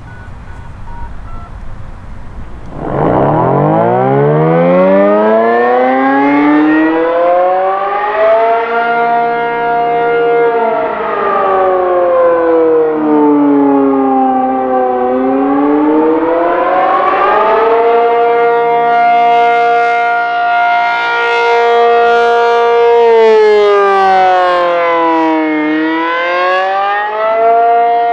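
ACA P-50 rotating dual-tone outdoor warning siren sounding the Attack signal. It spins up about three seconds in, climbing from a low growl to full pitch, then falls and rises again twice in a slow wail.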